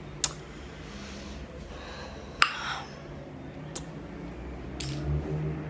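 Four sharp clicks close to the microphone, spread over a few seconds; the loudest, about halfway through, is followed by a short breathy rush, and a brief low hum comes near the end.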